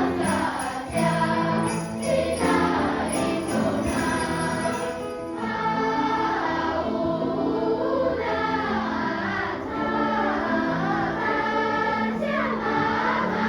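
Music: a choir singing, with jingle bells shaking in a steady rhythm through about the first five seconds.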